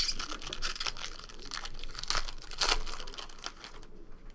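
Crinkling and tearing of a trading-card pack wrapper being handled and opened, a dense crackle that dies down near the end.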